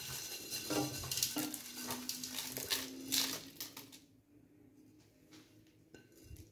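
Whole peppercorns, garlic cloves and bay leaves tipped from a glass bowl into a pot, pattering and clinking as they fall onto the meat and against the bowl. It goes on for about four seconds, then only a few faint taps as the last pieces are picked out.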